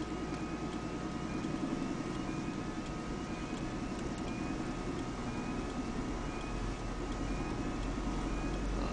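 Car cabin noise while the car is driven: a steady engine and road rumble heard from inside, with a faint steady high tone over it.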